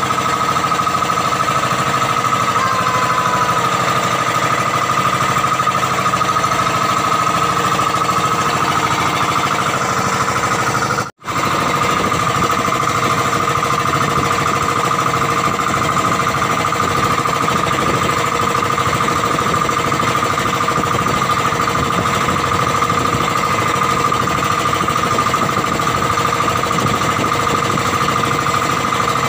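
Outrigger boat's inboard engine running steadily while the boat is under way, with a brief break about eleven seconds in.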